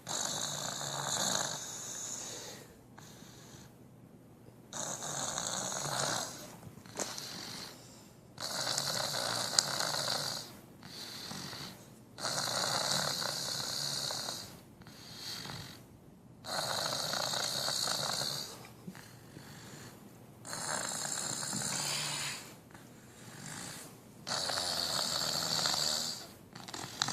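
Snoring in a steady rhythm: about seven loud snores roughly four seconds apart, with quieter breaths between.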